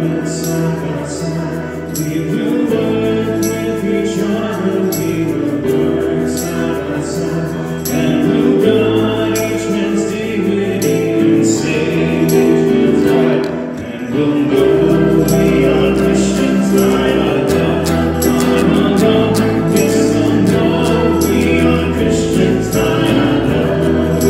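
Church worship music: a solid-body electric guitar playing chords along with bass notes and a steady ticking beat, with voices singing together. The music dips briefly about two-thirds of the way through.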